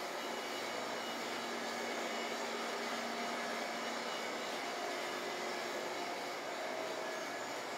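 Steady outdoor background noise: an even rushing hiss with a faint low hum underneath, and no distinct events.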